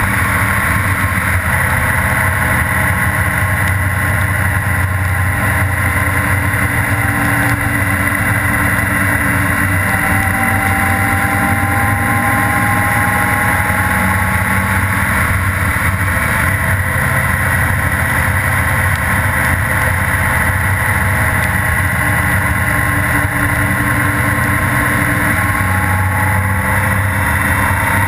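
Honda Gold Wing GL1800's flat-six engine running steadily at cruising speed, mixed with a constant hiss from the tyres on the wet pavement. A faint whine drifts slowly up and down in pitch as the speed changes.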